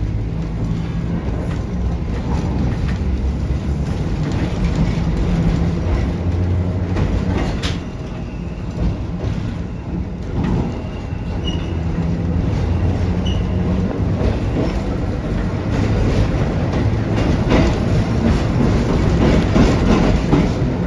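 Electric trolley car running along the track: a steady low hum over the rumble of wheels on the rails, with one sharp click about eight seconds in.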